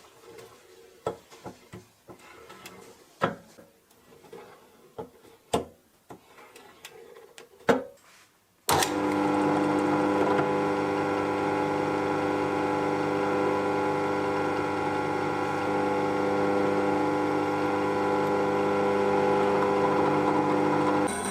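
A few scattered sharp knocks and clicks. About nine seconds in, a freshly restored KIRA 10mm bench drill press switches on suddenly and runs with a steady hum.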